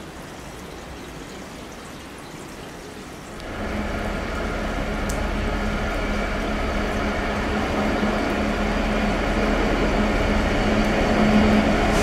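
Class 66 diesel locomotive's two-stroke V12 engine running with a steady drone as it approaches, growing gradually louder. It comes in suddenly about three and a half seconds in; before that there is only a faint steady hiss.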